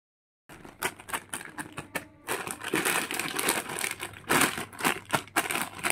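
Clear plastic bag crinkling and crackling as hands squeeze and handle it, with the small plastic toy kitchen pieces inside clicking against each other; it starts about half a second in as an irregular run of sharp crackles.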